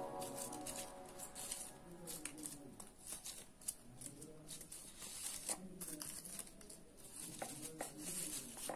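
Soft rustling and crinkling of paper flowers, with scattered light clicks, as their stems are handled and pushed into a vase. Faint voices murmur in the background.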